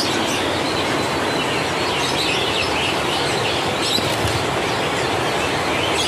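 A steady rush of background noise with many small caged birds chirping and calling over it.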